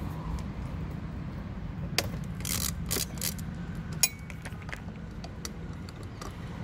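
Small hand ratchet with a screwdriver bit clicking in short runs, with light metal clinks, as a screw holding the oil-filter cover panel is loosened. There is one sharp click just after four seconds in.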